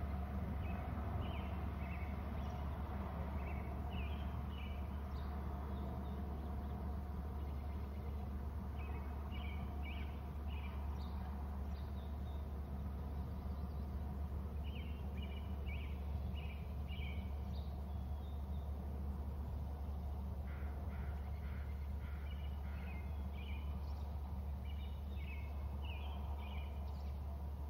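Birds calling in scattered clusters of short, high chirps over a steady low hum.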